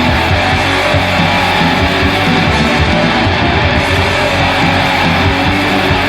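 Black metal recording: heavily distorted electric guitars strumming over bass in a dense, loud, unbroken wall of sound.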